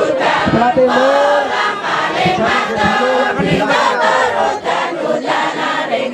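A crowd of many voices chanting and singing together, overlapping, with pitches sliding up and down.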